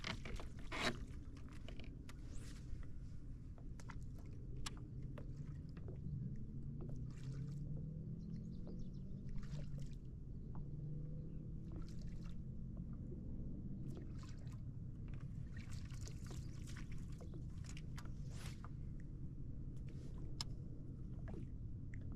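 A topwater frog lure splashing onto calm water near the start, then small splashes and clicks as it is worked and reeled back to the kayak, over a steady low rumble. A low droning tone glides up and down for several seconds in the middle.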